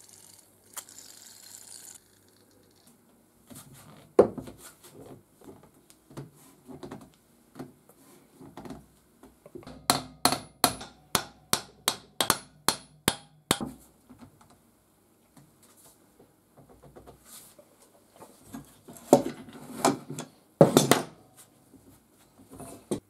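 A brief hiss of penetrating-oil spray, then a hammer striking a rusted cast-iron vise whose movable jaw is seized. The blows come as scattered knocks, then a quick run of about ten sharp metal strikes, and a heavier cluster of knocks near the end.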